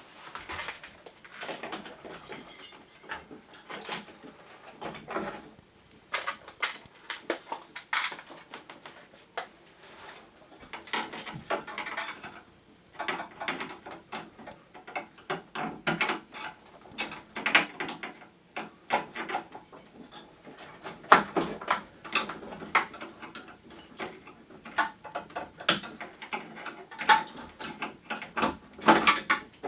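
Plastic parts of an air conditioner being handled and unclipped during disassembly: irregular clicks, knocks and short scraping sounds.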